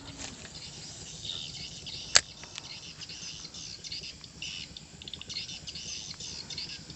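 Rhythmic high-pitched chirping of riverside wildlife in short repeating pulses, with one sharp click about two seconds in.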